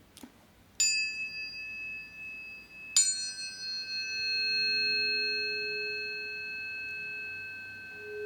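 A faint click, then tuning forks struck twice about two seconds apart. Each strike gives a bright ping with high overtones that settles into a long, steady ringing. A lower, softer tone swells in about four seconds in and keeps sounding.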